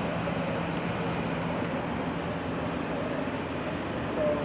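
Steady street traffic noise, with a continuous low engine hum underneath.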